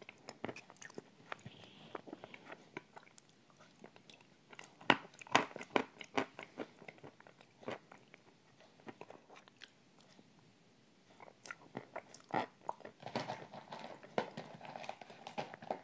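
Close-miked mouth sounds of eating a soft cream dessert: irregular wet chewing clicks and lip smacks, with a brief pause about two-thirds of the way through.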